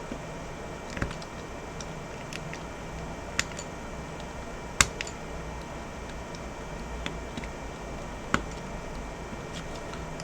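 Small sharp clicks and taps of hand tools and small parts working inside an opened iPhone 11 during reassembly, four of them standing out, over a steady low hum.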